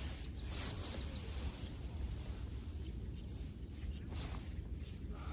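Outdoor riverside ambience: a steady low wind rumble on the microphone, with a few faint, short bird chirps about half a second and a second in. A brief burst of noise comes about four seconds in.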